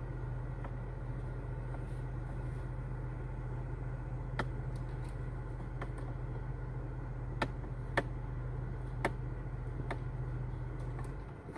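Steady low hum inside a car, with a few faint light clicks, cutting out suddenly near the end.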